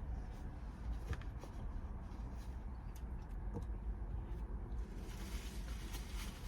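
Quiet ambience inside a parked car: a low steady rumble, with a few faint soft clicks and rustles from eating.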